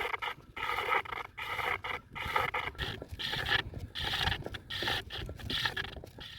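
Repeated short, rough animal calls, about one and a half a second.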